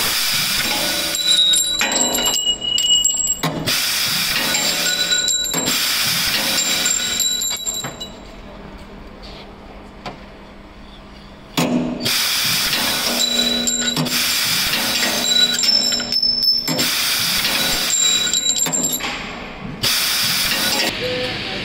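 Laser tube cutting machine cutting a 10 mm stainless steel round tube. The cutting gas hisses in repeated bursts of a second or two, with the whine of the chuck and axis motors under and between them. About eight seconds in there is a quieter stretch of a few seconds.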